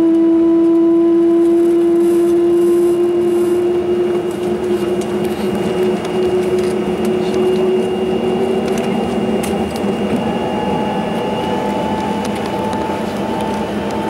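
Dornier 328JET turbofan engine spooling up during start, heard from inside the cabin: a steady whine that rises slowly in pitch over a dense hum, with a second, higher tone joining about ten seconds in.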